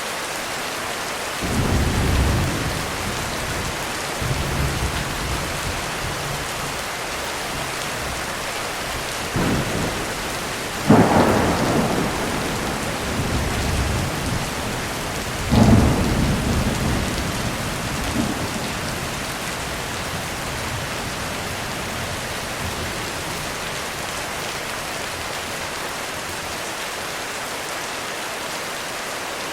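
Heavy rain falling steadily on a roof, with thunder. A low rumble rolls in about a second and a half in. Two sharp cracks come around ten and eleven seconds, and another near fifteen seconds, each followed by rumbling that dies away, leaving only the rain for the last ten seconds.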